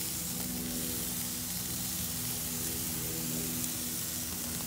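Thin slices of beef cecina sizzling on a hot grill grate, almost done: a steady hiss, with a steady low hum underneath.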